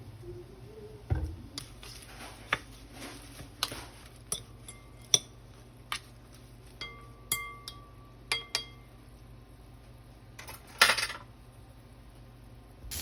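Kitchen utensils clinking and tapping against ceramic dishes and bowls in a dozen or so separate knocks, a few ringing briefly. A longer, louder noisy stretch comes about 11 seconds in.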